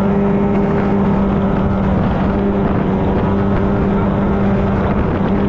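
Two-stroke engine of a Superjet-powered mini jet boat running under way at a steady, even pitch.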